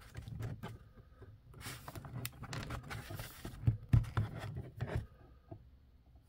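A plastic Batman Hellbat-armor action figure being handled and posed by hand, giving soft scrapes and scattered clicks of plastic parts. There is a louder knock about four seconds in.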